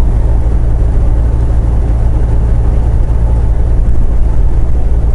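Semi truck's diesel engine and tyre noise droning steadily inside the cab while cruising at highway speed, with a deep steady hum.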